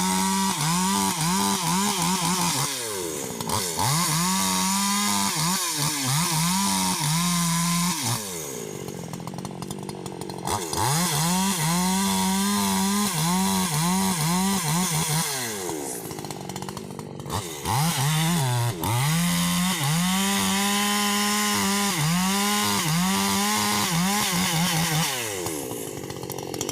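Husqvarna 288 XP two-stroke chainsaw running at high revs and cutting rubberwood, its engine pitch dipping and recovering again and again under load. It eases off to a quieter, lower running twice, and again near the end.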